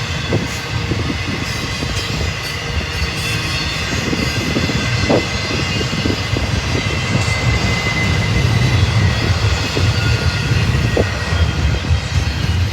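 Intermodal freight train's container and trailer cars rolling past at close range: a steady low rumble of wheels on rail with scattered clicks and clatter, and a faint steady high tone over it.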